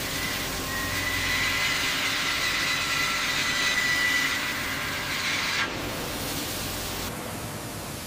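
CNC milling cutter machining a thick steel plate: a steady grinding hiss with a high whine on top, which changes character about five and a half seconds in.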